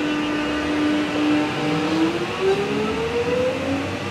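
X'Trapolis 100 electric multiple unit moving off from the platform, its traction motors giving a whine that starts rising in pitch about a second and a half in as the train gathers speed, over steady running noise with a few knocks.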